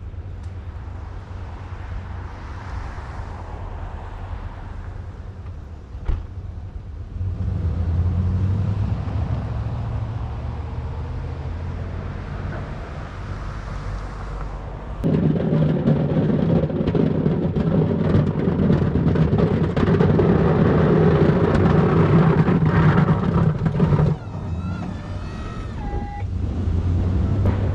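Snow plow's engine running while it pushes snow up onto a pile: a steady low rumble that swells about a quarter of the way in, works much harder for about nine seconds past the middle, then eases off. A brief wavering high squeal comes near the end.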